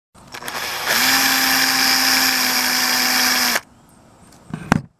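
Power drill with a small bit boring through the primer end of a spent .223 Remington brass casing: the motor comes up to speed about a second in, runs at a steady pitch for under three seconds, and stops suddenly. A single short knock follows near the end.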